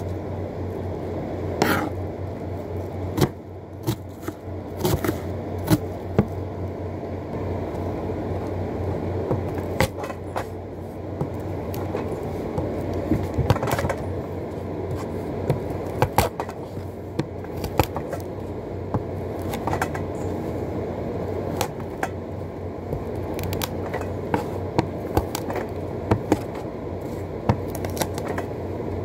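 Kitchen knife cutting onion and garlic on a cutting board: irregular sharp taps of the blade on the board, with some scraping, over a steady low hum.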